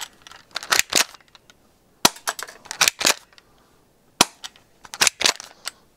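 Airsoft pistol firing BBs through a chronograph: sharp cracks about every two seconds, each followed by a quick run of smaller clicks.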